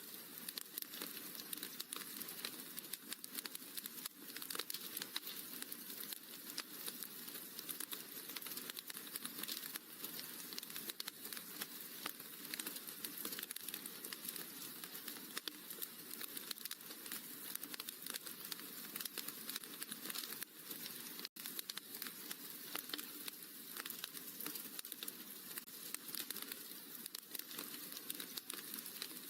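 Wood fire crackling in a fireplace: a dense, continuous stream of small pops and snaps, cutting out for a split second about two-thirds of the way through.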